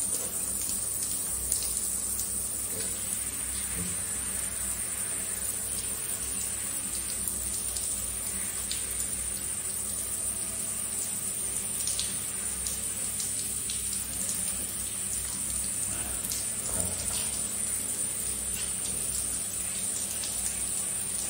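Shower water running and splashing steadily onto the shower floor, with a few faint drips and ticks.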